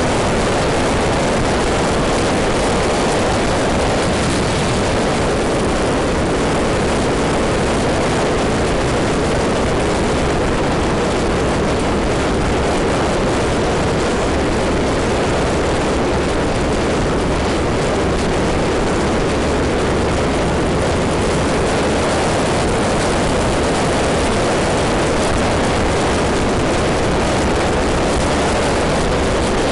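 Maxi-scooter riding at steady road speed: a constant rush of wind on the microphone mixed with engine and road noise, with no change in level.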